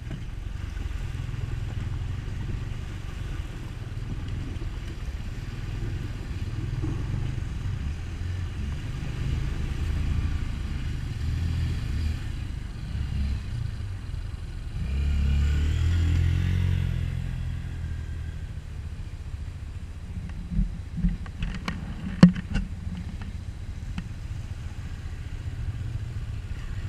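Trail motorcycle engines running with a steady low rumble. Another dirt bike rides up and passes close about fifteen seconds in, and a few sharp knocks follow a little after twenty seconds.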